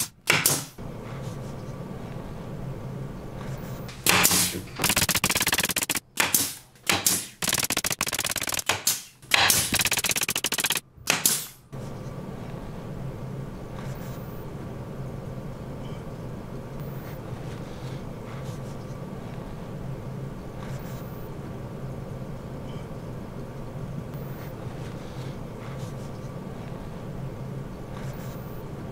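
Pneumatic pin nailer firing into plywood in quick runs of shots through the first dozen seconds. After that only a steady low hum remains.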